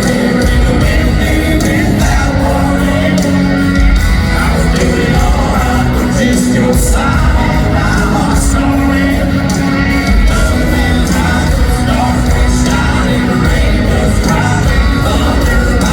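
Live country band playing loudly in an arena, with singing over the music.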